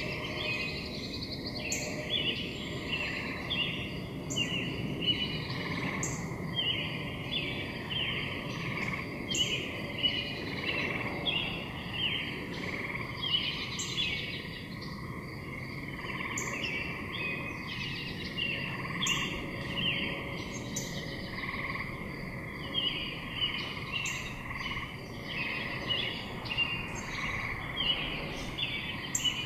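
A chorus of short, rapidly repeated animal calls, high-pitched and continuous, with a sharp click every second or two over a low background hum.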